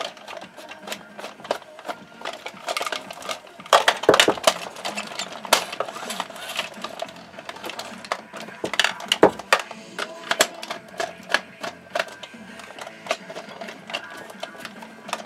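Screwdriver working screws out of a RoboSapien toy robot's hard plastic shell, with the plastic parts handled and shifted: irregular clicks, ticks and knocks, a few louder knocks about four and nine seconds in.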